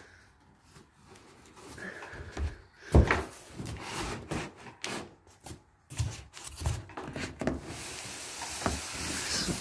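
Large cardboard box being handled and opened: flaps rubbing and scraping against each other, with scattered knocks and a sharp knock about three seconds in, then a steady cardboard rustle near the end.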